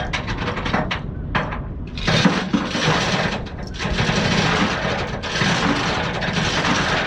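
Steel tie-down chain clinking and rattling as it is handled: a quick run of sharp metal clinks, then about two seconds in a denser, continuous rattling and scraping.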